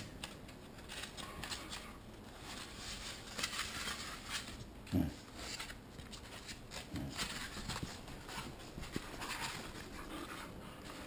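Paper rustling and crinkling as a booklet's pages are handled, in quick irregular crackles. There is a short low thud about five seconds in.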